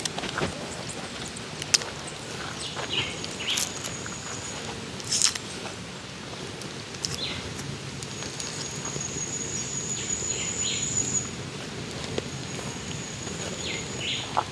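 Outdoor bush ambience: birds chirping, and a high, thin steady note that sounds for a few seconds twice in the second half. There are soft rustles and a few short taps as hands toss chicken pieces in a plastic bowl of flour.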